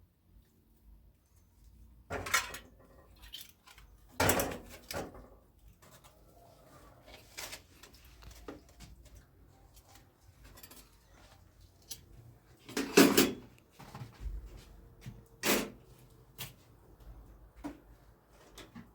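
Objects being handled: a series of separate knocks and clatters, loudest about two, four, thirteen and fifteen seconds in.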